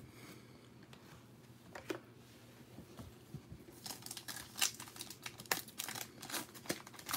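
A trading card pack's foil wrapper being torn open and crinkled by hand: quiet at first, then from about four seconds in a rapid run of irregular crackles.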